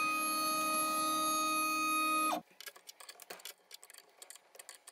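A steady pitched hum with many overtones that cuts off abruptly about two and a half seconds in. After it come faint small metal clicks and ticks: a wrench working the router's collet nut to free the end mill.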